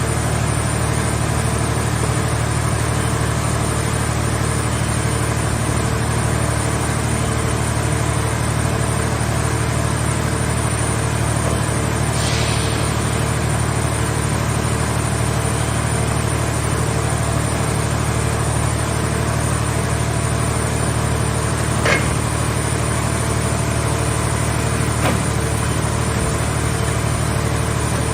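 Engine of a portable car-body baler running steadily. A short hiss comes about twelve seconds in, and a sharp click or knock about 22 and again about 25 seconds in.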